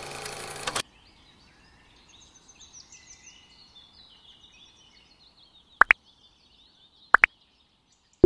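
Video-editing sound effects: a brief burst of static-like transition noise, then faint bird chirps, then two quick double mouse-click effects about a second and a half apart from a subscribe-button animation, with a bell ding just starting at the very end.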